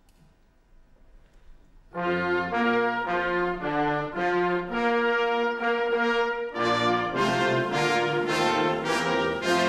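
Military band brass strikes up about two seconds in after near silence, playing slow, held chords. After a brief break about six and a half seconds in, the full brass comes back in, fuller and brighter.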